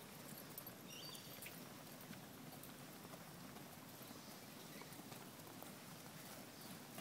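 Ponies trotting on a sand arena at a working trot, their hoofbeats faint and soft with a scatter of light ticks.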